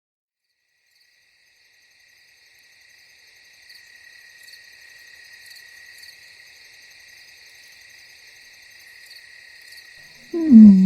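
Ambience of chirping crickets, fading in slowly and holding steady. Near the end a loud, deep, pitched vocal sound cuts in and drops in pitch.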